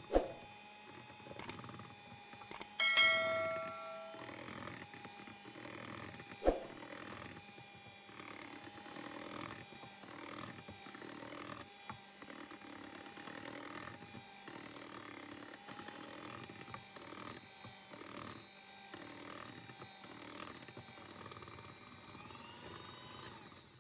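Electric hand mixer running, a steady motor whine with the beaters tapping and scraping against a metal bowl as they beat cake batter. A knock near the start and another about six seconds in, a short ringing tone about three seconds in, and the whine rising in pitch near the end.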